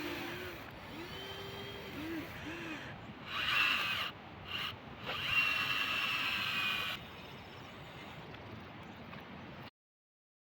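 Small electric gear motors of a Huina 1593 RC excavator whining in three short runs, the middle one briefly, then going quiet; the audio cuts off near the end.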